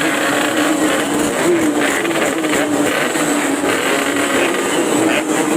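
Two-stroke Yamaha RX-King motorcycle engines being revved ('blayer'), holding a steady high pitch with small blips.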